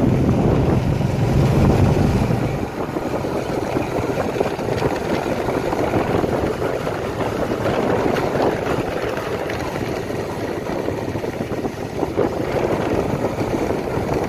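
A vehicle's engine running as it travels along a rough dirt lane, with wind rumbling on the microphone; the low rumble is heaviest for the first couple of seconds and then eases.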